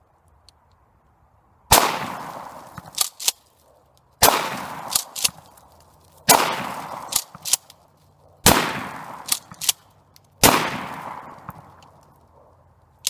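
Five 12-gauge shotgun blasts from a Remington 870 pump shotgun, about two seconds apart, each followed by a fading echo. Between shots comes the quick two-part clack of the pump being racked to chamber the next shell.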